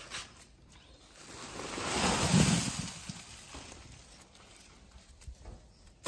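Rustling of a paper bag and burlap sacking being handled, swelling up and fading away about two seconds in.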